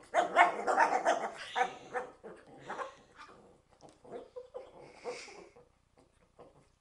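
A dog eating from its bowl gives a run of short growling barks, guarding its food from a hand reaching toward it. They are loudest in the first two seconds, then fainter and more spaced out.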